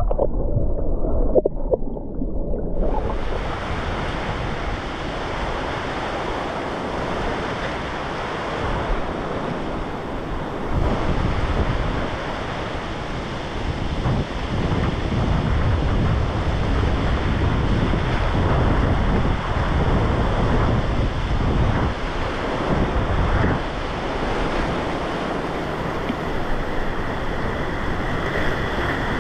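Muffled underwater sound for about the first three seconds, then the steady rush of a fast river's whitewater rapids.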